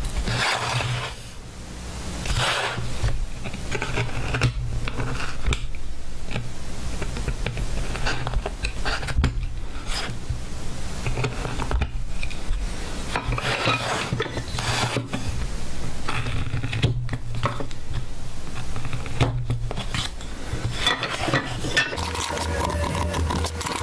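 Hand carving chisel cutting into a dry wooden board: a run of short, irregular scraping and clicking strokes as the blade pares out the scrollwork, over a steady low hum.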